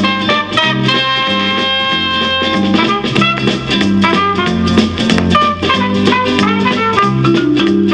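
Band music played from a vinyl record through 1950s Bell & Howell valve amplifiers (models 601 and 621) and their speakers, with held notes over a moving bass line.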